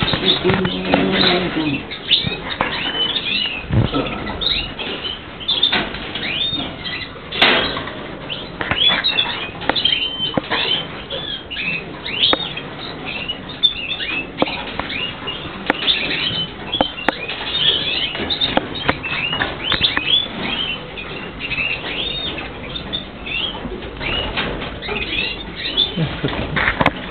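Many small birds chirping together in a busy, overlapping chatter of short high chirps, with frequent wing flutters and light clicks among them.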